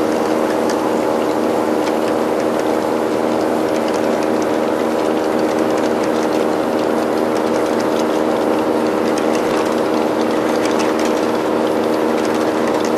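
HO scale model freight train running past, a steady mechanical hum with light, rapid clicking of the cars' wheels on the track.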